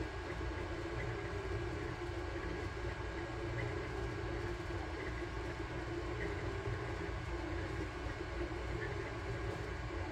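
Sunlu Terminator 3 FDM 3D printer running a print: a steady hum of its fans and stepper motors as the print head moves, with a thin steady whine and a few faint ticks.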